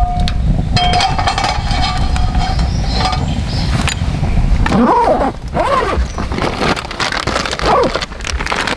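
Low wind rumble on the microphone over a wood campfire, with a few clinks as an iron frying pan is set on the metal grill grate. From about five seconds in come several short calls that rise and fall.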